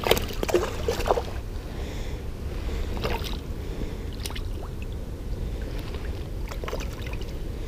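A hooked bass splashing at the surface beside a kayak as it is brought in, with water sloshing and scattered small clicks and knocks, busiest in the first second, over a steady low rumble.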